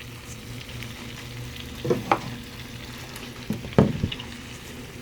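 Sliced red potatoes sizzling steadily as they fry in melted butter in a skillet, with a few short knocks against the pan about two seconds in and again near four seconds.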